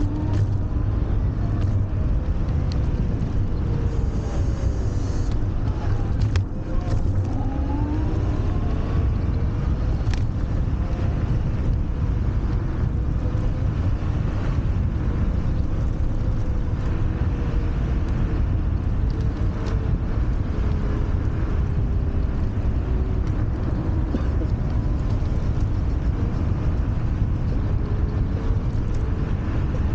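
Wind rushing over the microphone from a moving Wolf Warrior 11+ electric scooter, with the hub motor's faint whine gliding up and down in pitch as the speed changes, mostly in the first several seconds.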